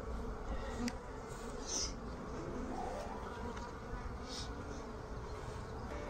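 Steady hum of a large crowd of honeybees buzzing at a hive entrance, with one faint click about a second in.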